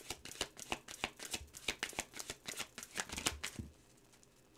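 A tarot deck being shuffled by hand: a quick, uneven run of card riffles and slaps that stops shortly before the end, followed by a single thump at the very end.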